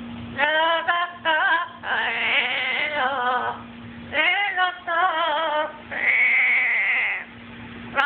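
Blue-fronted Amazon parrot singing in a warbling, wavering voice: several short phrases with brief breaks, then a long held high note about six seconds in. A faint steady hum runs underneath.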